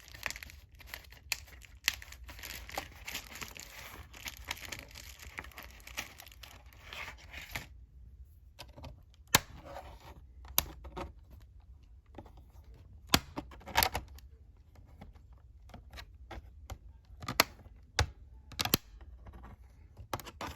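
The plastic RAM access cover on an HP 15-f200 laptop being pried open with a tool. For about eight seconds there is continuous scraping and creaking of plastic; it stops abruptly, and scattered sharp clicks and taps follow.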